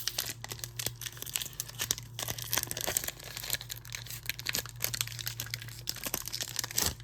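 A foil Pokémon booster pack wrapper being torn open and crinkled in the hands, a dense crackling that stops abruptly near the end.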